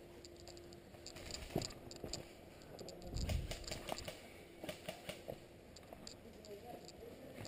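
Faint scattered ticks, crackles and rustles of someone moving on foot through woodland undergrowth, with a low rumble of handling noise about three seconds in.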